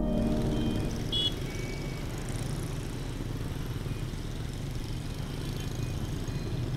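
City road traffic: a steady hum of cars and motorbikes on a multi-lane road, with a short high beep about a second in.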